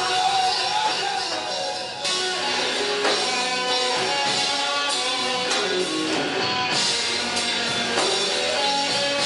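Live gospel worship song: a man singing through a microphone over electric bass, electric guitar and keyboard. The sound jumps abruptly about two seconds in, after which the band plays on.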